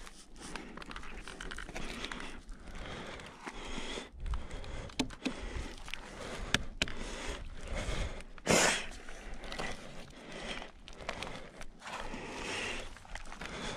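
A climber breathing hard while scrambling up rock, with hands and shoes scraping and knocking on the rock in a run of sharp clicks. A short, loud rush of noise comes a little past halfway.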